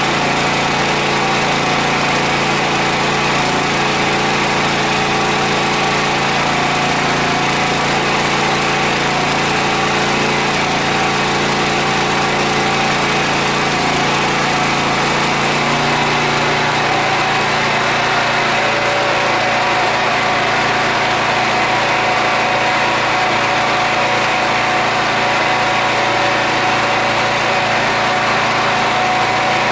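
Predator 8750 inverter generator's engine running steadily under a welding load. Its note changes about halfway through.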